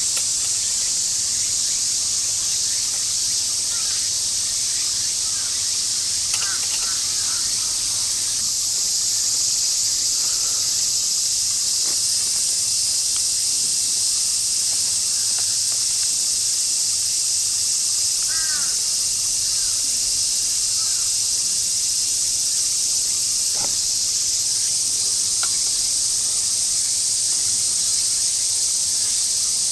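Steady, high-pitched chorus of summer insects, with a few short bird calls about six seconds in and again around eighteen seconds.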